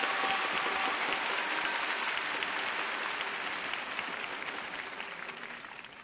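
Large arena audience applauding, a dense patter of many hands clapping that fades away toward the end.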